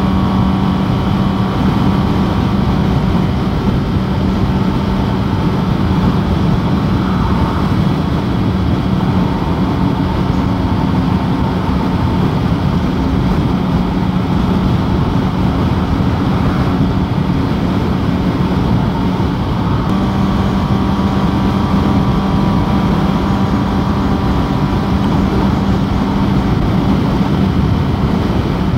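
Sport motorcycle engine running at a steady cruising speed, one unchanging engine note, under a constant rush of wind and road noise.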